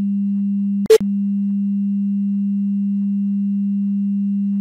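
A steady 200 Hz sine test tone for a left/right stereo speaker check. About a second in, a short loud click breaks the tone, where the test switches from the left channel to the right.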